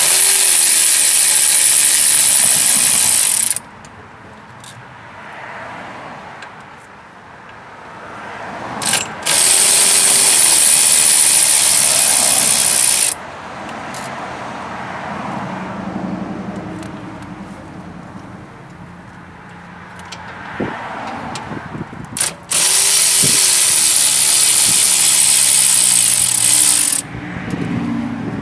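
Handheld cordless power tool running in three long bursts of about four seconds each, spinning out the bolts that hold the radiator fan so it can come off.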